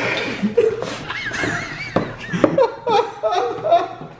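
Several people laughing and snickering, with a high wavering squeal of laughter about a second in and a few sharp clicks.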